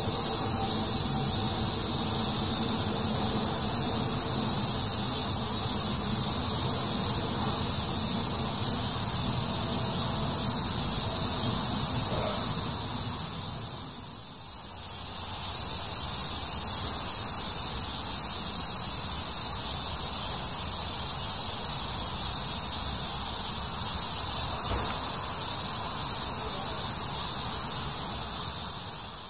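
Cicadas shrilling in a steady, high-pitched chorus that fades down briefly about halfway through and again near the end.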